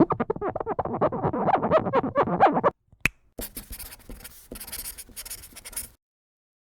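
Rapid scratching strokes for nearly three seconds, then a single sharp click, then a stretch of hissy scratching that stops and starts a few times.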